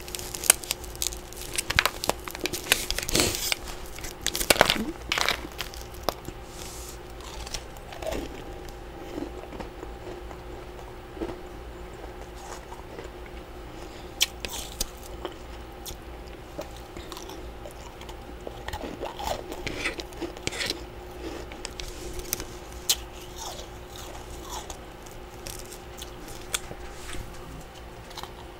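Mouth biting and chewing chunks of freezer frost: crisp crunches, packed close together for the first few seconds, then sparser single bites. A faint steady hum runs underneath.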